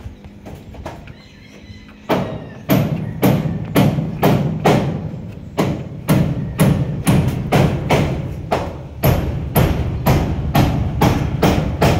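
Background music with a steady percussive beat, about two beats a second, starting about two seconds in after softer held tones, with a deep bass joining near the end.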